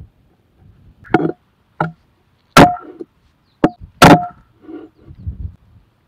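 A meat cleaver chopping raw chicken on a thick wooden board: about five sharp, unevenly spaced strikes, each with a short ringing, then a couple of softer knocks near the end.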